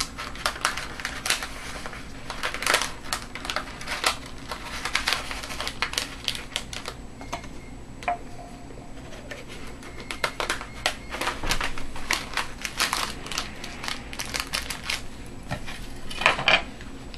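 Paper crinkling and rustling as it is folded into a cone around paint paste, mixed with many irregular light clicks and taps from handling a metal paint tube and steel palette knives.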